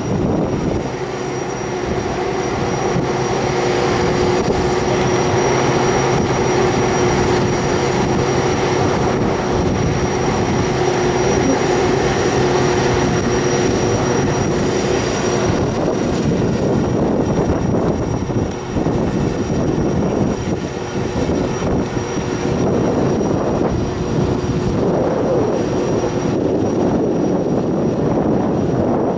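Steady loud drone of running aircraft machinery with a constant high whine over a lower hum; the hum drops away about halfway through.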